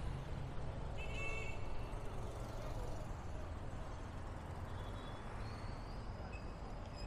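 City street ambience: steady low traffic rumble from cars and motorbikes, with a brief high-pitched chirp about a second in.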